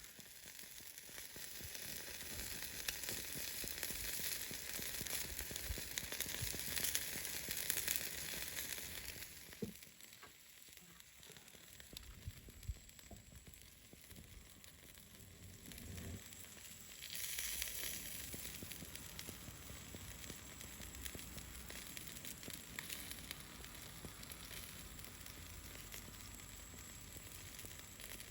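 Buffalo chicken wings sizzling on a grill over a wood bonfire, their oily skin rendering fat. The sizzle is loud for the first nine seconds or so, eases off, then swells again a little past halfway and settles.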